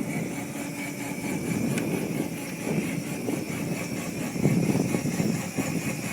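A small child's ATV running as it is ridden, with a rough, uneven engine note that gets louder for a moment about four and a half seconds in.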